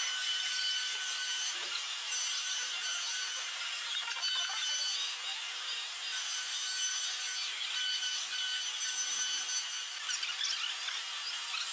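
CNC mill cutting a brass workpiece: a steady high cutting hiss with a thin whine that comes and goes. The sound turns scratchier and more crackling near the end.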